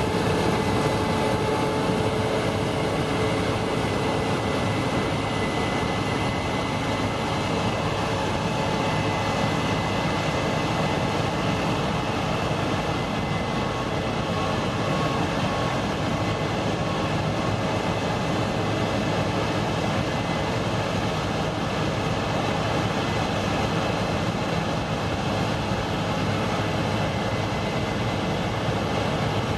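Case IH 8230 combine harvester running steadily while harvesting wheat: a constant machine drone with a few held tones in it.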